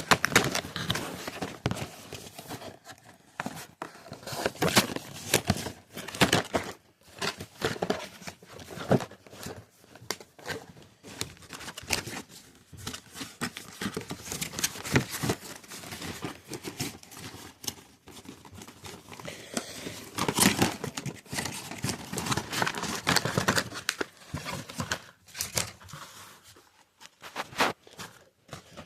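Packaging of a 3D printing pen being opened and handled: plastic wrap crinkling and tearing, with irregular rustles and sharp clicks from cardboard and contents being moved about.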